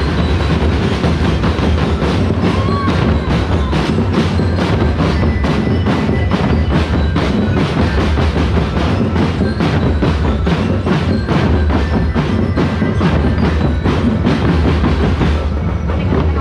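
Street-festival drum band playing a steady, driving beat of sharp strikes, about two to three a second. The beat breaks off about a second before the end.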